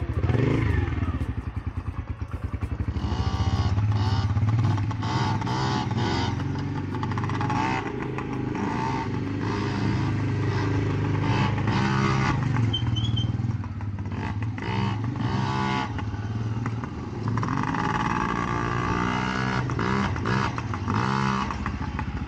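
Small dirt bike engine running and revving up and down as the bike rides around, its pitch rising and falling repeatedly.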